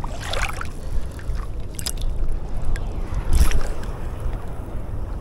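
Wind rumbling on the microphone over water lapping, with a few short splashing swishes.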